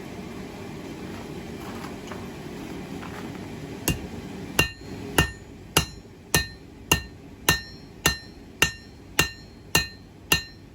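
Blacksmith's hammer striking 1084 high-carbon steel stock, twelve evenly spaced, ringing blows at a little under two a second starting about four seconds in, as excess stock is cut off the bar. A steady low rumble lies under the first few seconds.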